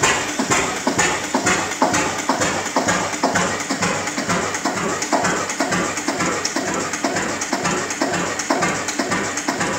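National KB single-cylinder hot-bulb oil engine running, a steady rapid rhythm of knocks and clatter from the engine and its valve gear.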